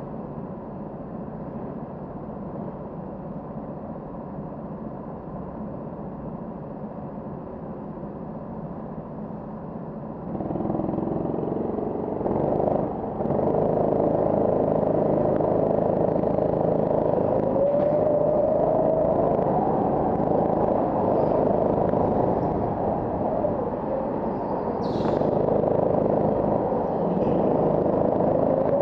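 Go-kart engines running at low speed, then from about ten seconds in the kart's engine opens up and runs louder, its pitch rising as it accelerates, twice.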